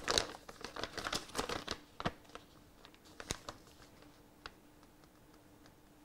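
Paper leaflet being unfolded and handled: crinkling and rustling paper, busiest in the first two seconds, then a few sharp crackles that die away after about four and a half seconds.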